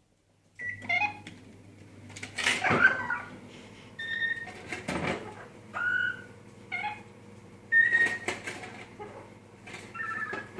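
Pet parrot giving a series of short whistles and squawks, several on the same clear pitch, with two louder, harsher calls near the third and fifth seconds. A low steady hum runs underneath.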